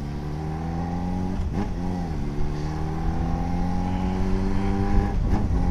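Yamaha XJ6 motorcycle's 600 cc inline-four engine running on the move at steady revs, its pitch creeping up slightly as it gently picks up speed.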